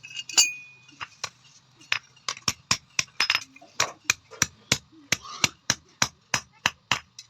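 Blacksmith's hammer striking metal: a few separate ringing blows, then a steady run of about four to five blows a second.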